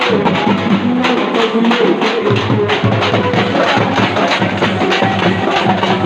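A group of dappu (thappetlu) frame drums beaten with sticks in a fast, driving rhythm, many drums striking together.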